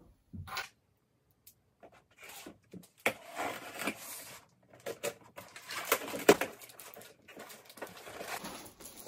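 Cardboard shipping box being opened: the packing tape is slit and torn with a scratchy rasp, then the cardboard rustles and scrapes as the flaps are worked open, with a few sharp knocks and clicks about two-thirds of the way through.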